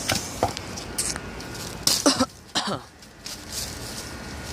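A series of sharp knocks from a hatchet chopping into a log. The loudest two blows come about two seconds in.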